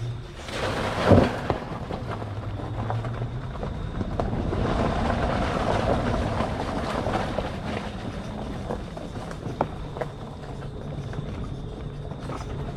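Electric ATV with four hub motors riding a woodland trail: the tyres rolling over dirt and forest floor, with scattered knocks from the machine, and little motor sound. A brief loud rush comes about a second in.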